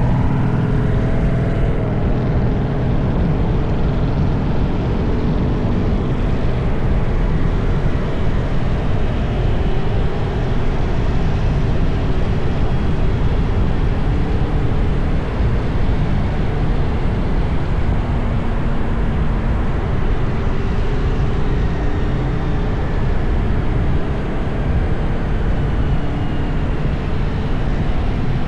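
Steady city road traffic: engines and tyre noise of passing vehicles, with no break.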